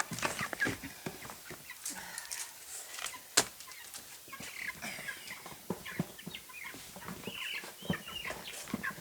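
Young meat chickens peeping and clucking in many short calls, with scattered light knocks and one sharp knock about three seconds in.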